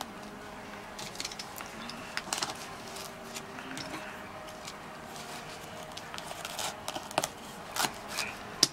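A knife prying into the seams of a durian's spiky husk while hands pull the husk apart. Scattered small cracks and clicks, with a few sharper ones near the end.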